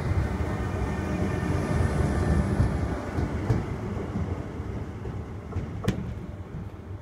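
Z2N double-deck electric multiple unit running along the track, the rumble of its wheels on the rails fading as it draws away. A single sharp click about six seconds in.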